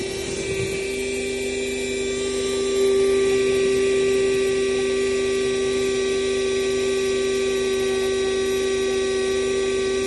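Handheld cordless car vacuum running steadily with a constant motor whine, as the hose nozzle sucks at the car's floor carpet. A second, lower tone joins about a second in.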